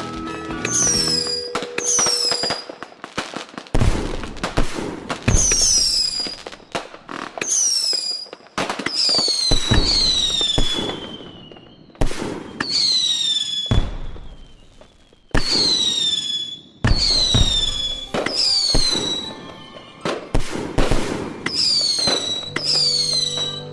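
Fireworks going off in quick succession: over a dozen short whistles that each glide downward, among sharp bangs and crackling. Steady music notes sound briefly at the start and again near the end.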